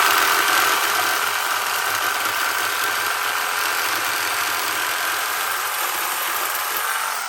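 Angle grinder with a cut-off wheel running steadily while cutting a steel tab off an aluminum driveshaft, a high whine over a harsh hiss, starting to spin down at the very end.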